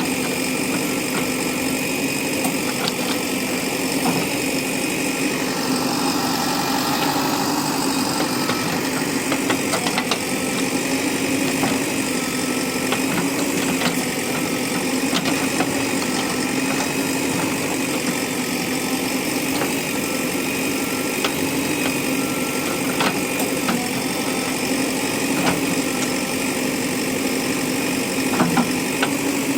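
JCB backhoe loader's diesel engine running steadily, with scattered light clicks and knocks over it.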